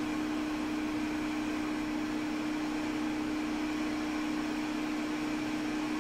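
Steady hum and hiss of a small electric blower running at the repair bench, with one constant low-mid tone and no change in pitch or level.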